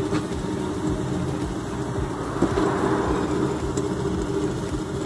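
Worn wheel bearing rumbling steadily as the wheel turns, with a constant hum through the noise.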